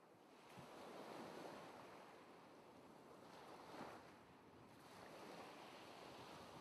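Faint ocean surf: a soft, even wash of waves that fades up over the first second and swells and ebbs a couple of times.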